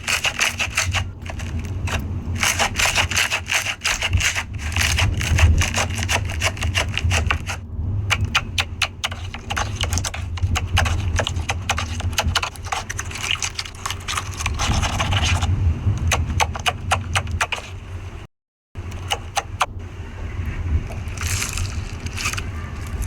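Slime being squeezed and worked by hand, giving a dense run of crackling, clicking pops, broken by a brief silence about three-quarters of the way through.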